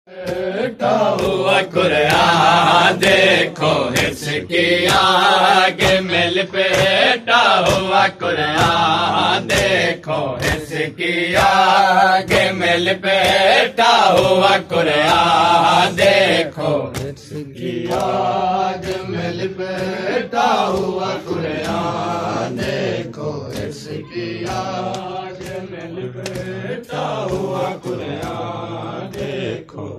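Men's voices chanting a Shia mourning noha, the sung lament lines rising and falling, with sharp rhythmic slaps of matam chest-beating keeping time.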